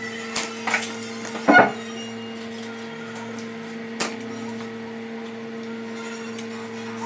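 A few scattered light knocks and clinks of dishes and tableware handled while eating; the loudest comes about one and a half seconds in, and single ones follow later. A steady low hum runs underneath.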